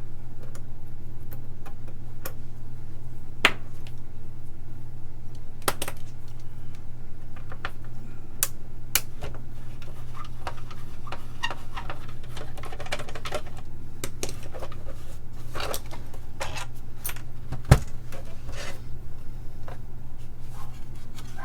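Scattered clicks, taps and knocks of a TRS-80 Model I's plastic case parts and tools being handled as the case is unscrewed and opened, over a steady low hum. A sharper thump comes late on.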